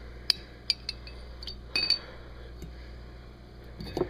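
A metal fork clinking against a glass jar while pickles are fished out, about eight sharp clinks at uneven intervals.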